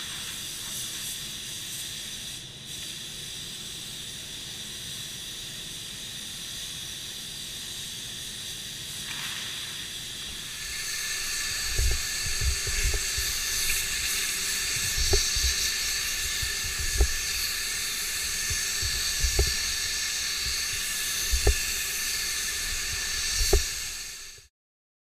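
Compressed-air paint spray gun hissing steadily as it sprays, louder and brighter from about ten seconds in, with scattered low knocks. The sound cuts off suddenly just before the end.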